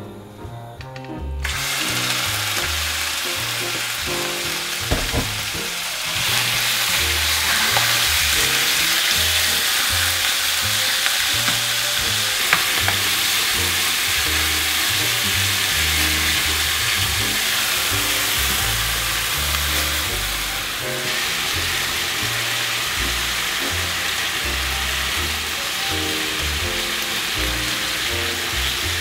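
Marinated beef hanger steak slices frying in hot oil in a nonstick frying pan: a steady sizzle that starts suddenly about a second and a half in, as the meat hits the oil, and grows louder about six seconds in, while the meat is stirred with a few light clicks, over background music.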